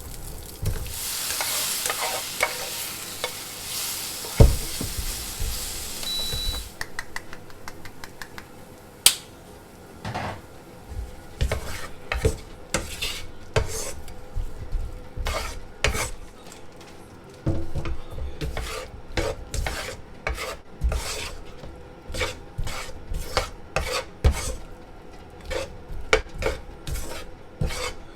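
Food sizzling in a frying pan for the first six seconds or so. The sizzle then stops, and a long run of irregular clinks and scrapes of utensils against pans and dishes follows.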